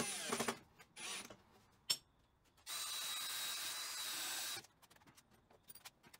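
Cordless drill driving screws into timber: a run that winds down just after the start, a short burst about a second in, then a steady run of about two seconds from near the three-second mark, with a sharp click in between.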